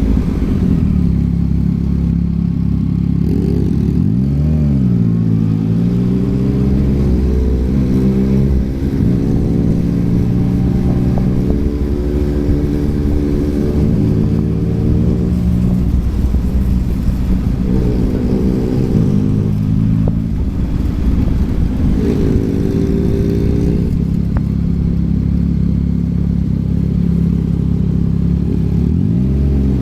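Yamaha MT-09's three-cylinder engine through a Yoshimura R11 exhaust while riding. The engine pitch climbs under throttle and drops back several times as the gears change, with a quick dip and rise about four seconds in and again near the end.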